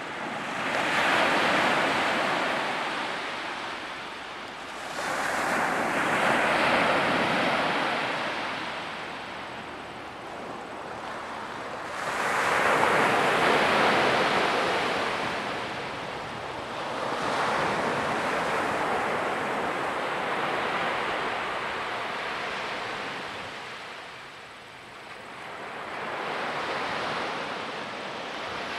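Small waves breaking on the shore, the surf swelling and falling away about every five seconds.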